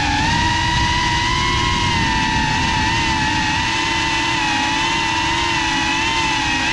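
FPV quadcopter's brushless motors and propellers, heard from the onboard camera: a steady, loud whine whose pitch wavers slightly with throttle, over a rough rushing low end.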